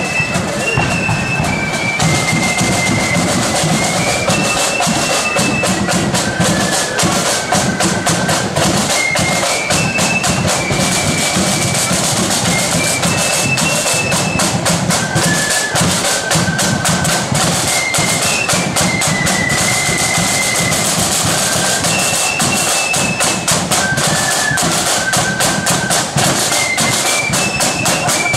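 Marching flute band playing a tune: shrill flutes carry the melody over a rapid, continuous snare drum beat and a bass drum.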